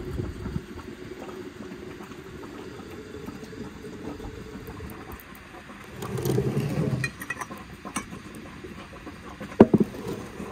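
Hot water running from a samovar tap into a glass jar of strawberries and sugar, a steady low pour. A few clicks of glass being handled follow, and one sharp knock near the end is the loudest sound.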